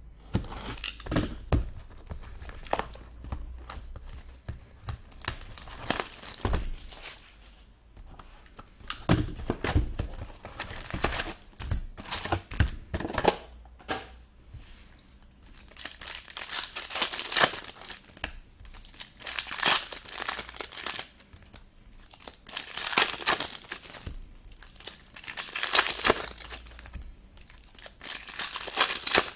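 A sealed box of trading cards being opened: handling clicks and tearing of wrap and cardboard, then, from about halfway, card-pack wrappers ripped open one after another in crinkly bursts every few seconds.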